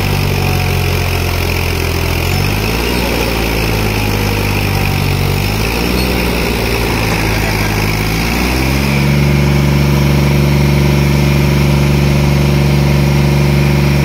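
John Deere 5310 tractor's three-cylinder diesel engine working to pull a loaded sugarcane trolley while stuck in the field. Its pitch sways up and down for several seconds, then about nine seconds in it rises to a higher, steady and slightly louder note.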